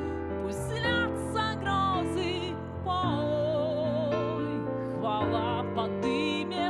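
A woman singing a Christian worship song into a microphone, holding sustained notes with vibrato over instrumental backing music.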